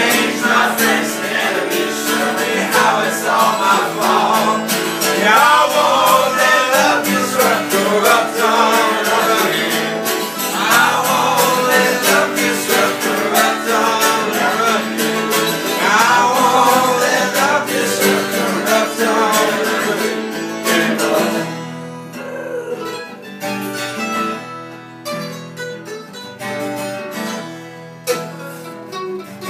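A man singing while strumming an acoustic guitar, with a second small stringed instrument picked alongside. About two-thirds of the way through the singing stops and the two instruments play on more quietly.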